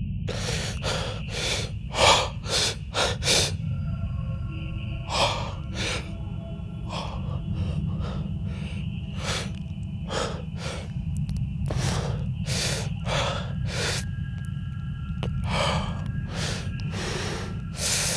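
A man breathing hard in quick, uneven gasps, over a low, steady musical drone with faint held tones above it.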